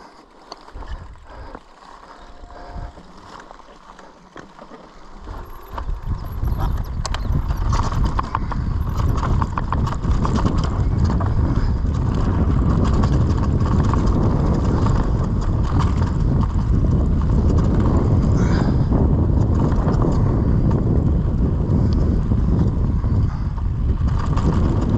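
Mountain bike rolling downhill over a bumpy grass-and-dirt trail, its tyres and frame rattling, with heavy wind rumble on the camera microphone. It is quieter with a few clicks at first, then turns loud and steady about five seconds in as the bike picks up speed.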